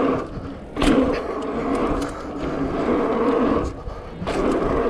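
Mountain bike tyres rolling fast on packed dirt with wind rushing over the camera microphone. The rolling noise drops away twice briefly and comes back each time with a sharp knock, as the bike goes airborne off jumps and lands.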